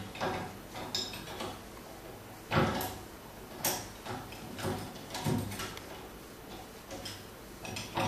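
Hand tools on a 5/16 nut and the acme lead screw as the nut is tightened down against its bearing: scattered metallic clicks and knocks, about one a second.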